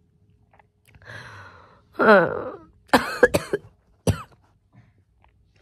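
A woman ill with COVID and a fever, her throat sore and dry, moaning and coughing: a falling moan about two seconds in, a few short strained sounds, then a sharp cough just after four seconds.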